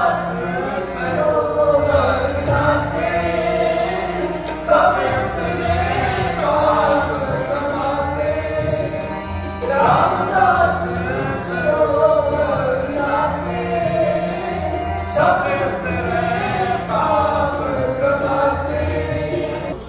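Sikh kirtan: men's voices singing a devotional hymn over harmonium and tabla, in lines that start afresh about every five seconds.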